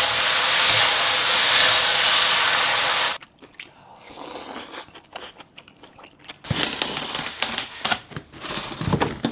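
A loud steady hiss for about three seconds that cuts off suddenly, then food being bitten and chewed with crunching sounds, louder in the last few seconds.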